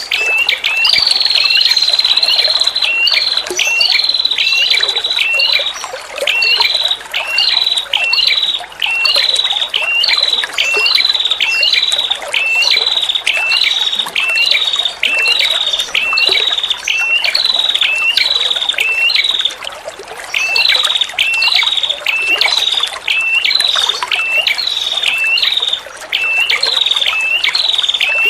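Female red-headed prenjak, a small Indonesian warbler, calling a long series of sharp hooked notes, about one and a half a second, with a short break about twenty seconds in. A steady trickle of running water is mixed in beneath.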